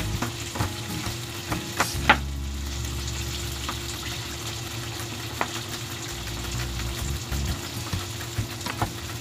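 Chicken barbecue sizzling steadily as it cooks, with a few sharp knife taps on a plastic cutting board as garlic is chopped; the loudest tap comes about two seconds in.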